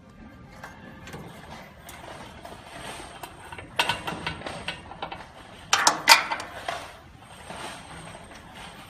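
Clicking and rattling handling noise as a wire is fastened to the metal electrode of a glass laser tube with pliers, in two short clusters about four and six seconds in.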